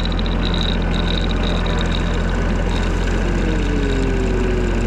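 Riding lawn mower's engine running at a steady speed as the mower drives along.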